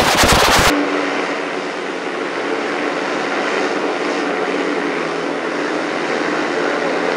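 Quadcopter drone hovering sound effect in an edited variation: a steady propeller hum with several held low tones. It cuts in a little under a second in, replacing a rapid clicking stutter.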